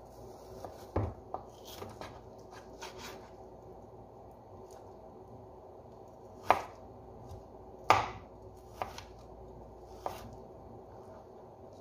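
Chef's knife chopping raw chicken breast into small cubes on a white plastic cutting board: scattered, irregular knocks of the blade on the board, the two loudest a little past the middle.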